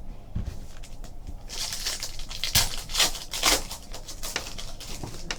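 A trading card pack's wrapper being torn open and crinkled, with a run of crackly rustles in the middle as the cards are pulled out and handled.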